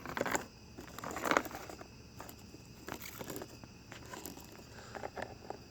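A loose chainsaw chain being handled and untwisted by hand, its links rattling and clicking in short, irregular bursts, loudest twice early on.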